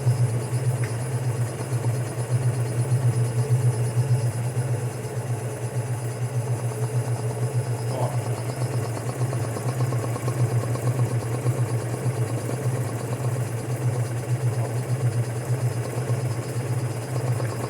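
Mitsubishi Outlander on the move: a steady low drone of engine and road noise, with one faint knock about eight seconds in.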